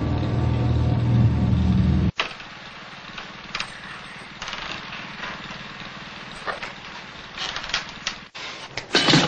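Small petrol generator engine running steadily with a low drone, cut off abruptly about two seconds in. Then quieter faint scattered knocks and clicks, with a louder clatter near the end.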